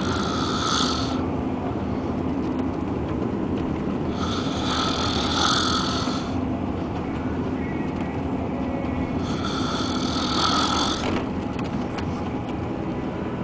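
A person snoring: three long, raspy snores about five seconds apart, over a steady low rumble.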